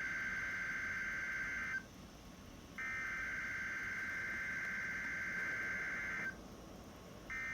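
NOAA Weather Radio SAME alert header: bursts of warbling digital data tones, each about three and a half seconds long, separated by about a second of silence. A burst ends about two seconds in, a second runs through the middle, and a third starts near the end. These are the coded header bursts that open the weather radio's alarm test.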